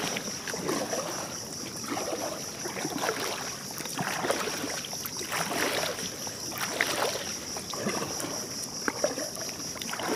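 Kayak paddle strokes: the double-bladed paddle dipping and pulling through calm river water about once a second, with splashes and drips, over a steady high-pitched tone.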